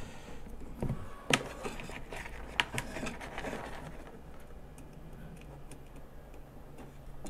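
Scattered light clicks and handling noise from hands working wires inside a plastic case, with a few sharper clicks in the first three seconds.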